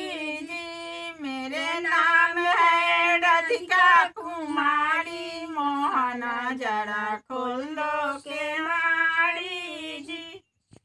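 Women singing a Hindi Krishna folk song unaccompanied, in long held, bending notes. The singing stops shortly before the end.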